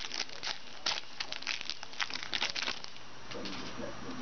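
Wrapper of a football trading-card pack being torn open and crinkled by hand: a run of irregular sharp crackles that thins out about three seconds in.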